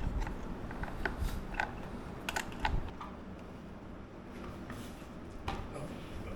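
Scattered clicks and light knocks from parts being handled and fitted while attaching the side covers of a gaming chair: several in the first three seconds, then fewer.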